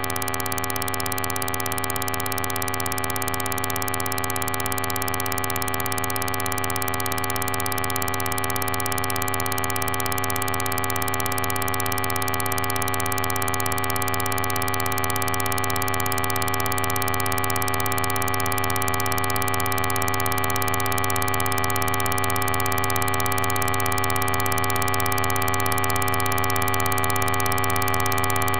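A dense, unbroken drone of many steady tones held at once, with a hiss above them, slowly swelling in loudness. It has the alarm-like quality of a siren but holds its pitch without rising or falling.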